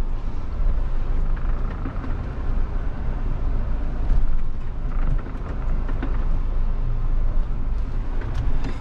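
Cabin sound of a Mahindra Thar's turbo-diesel engine running under load as the 4x4 crawls over rough off-road ground: a steady low rumble.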